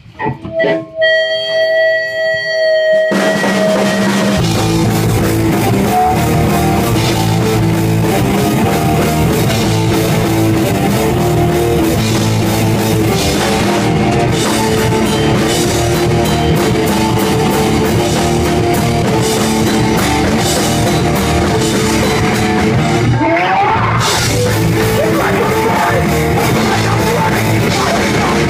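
Rock band playing live. A few ringing guitar notes open it, and the full band with drums and guitars comes in about three seconds in. Near the end there is a brief break with a rising guitar slide before the band picks back up.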